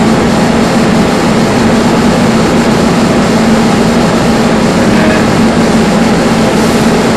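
Steady, loud hum and hiss of background noise, unchanging, with a low droning tone.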